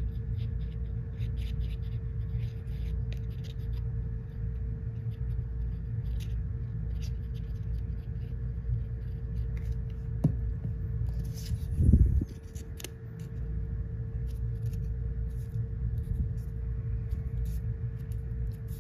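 Cardstock pieces being glued and pressed together by hand: scattered small clicks and rustles of paper handling, with one louder bump about twelve seconds in. A steady low hum runs underneath.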